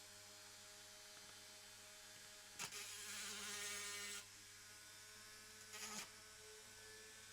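Small rotary grinding tool briefly grinding the mushroom head off a diecast toy's steel axle to free the wheel hub: a buzzing grind lasting about a second and a half, then a second short touch about three seconds later, over a faint steady hum.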